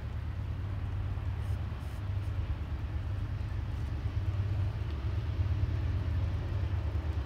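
Low, steady rumble of a Norfolk Southern freight train's diesel locomotives approaching while still far off, growing slightly louder.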